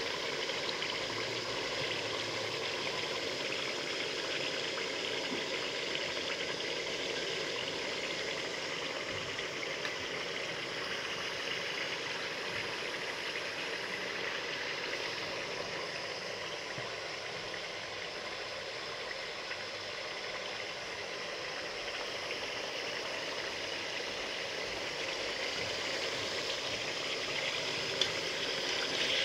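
Chicken pieces frying in oil in a steel pot, a steady crackling sizzle.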